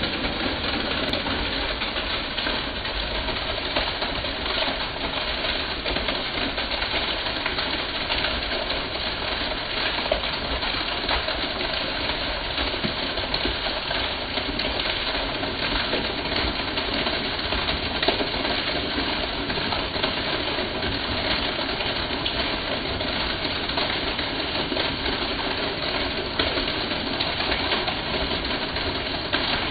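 Rainwater pouring off a roof edge in a thick sheet and splashing below: a steady rushing noise.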